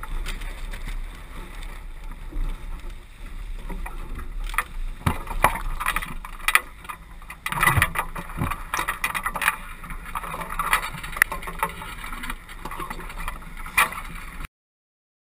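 Sailboat under way: wind buffeting the microphone and water rushing along the hull, with scattered knocks and rattles from the deck and rigging through the middle. The sound cuts off suddenly near the end.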